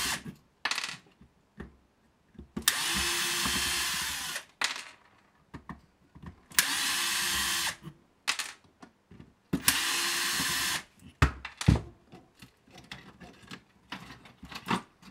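Cordless electric screwdriver running in three short bursts, the first about two seconds and the others a little over a second, backing screws out of a plastic instrument case. Small clicks and knocks of handling come between the bursts.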